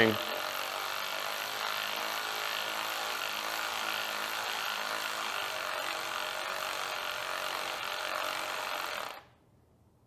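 Cordless electric ratchet running steadily as it spins out the rear brake lever's pivot bolt through a hex bit, then stopping abruptly near the end.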